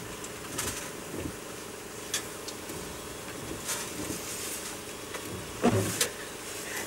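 Steady low background hum heard from inside a car waiting at a drive-thru window, with scattered light clicks and taps, and a short voice sound about six seconds in.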